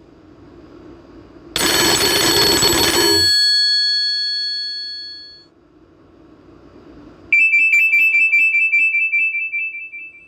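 Two short Nokia E72 alert tones played on a Samsung Galaxy A51 phone. The first is a bright burst that rings on and fades over a couple of seconds. The second, a few seconds later, is a high, fast-pulsing tone lasting about three seconds.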